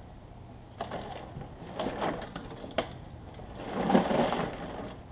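Northern snakehead dropped into a large plastic cooler, knocking against the plastic about a second in and again near three seconds. A louder burst of thrashing and scraping comes around four seconds in as the fish settles inside.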